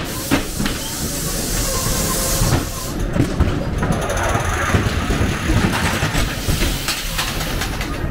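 Ghost train car rattling and clattering along its track, with a hiss about two seconds in.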